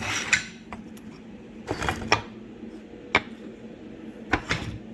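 A few sharp knocks and clinks of hard objects being picked up and set down on a workbench, with short pauses between them.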